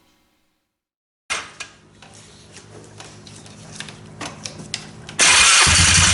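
Faint clicks and a knock, then about five seconds in the Polaris Trailboss 330's single-cylinder engine starts up and runs with a low, even beat.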